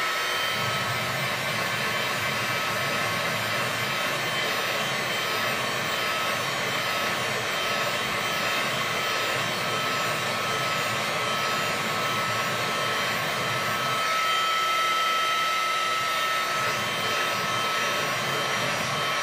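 Electric heat gun blowing steadily on a rubber uniseal to warm and soften it: a constant rush of air with a thin whine running through it. It cuts off suddenly at the very end.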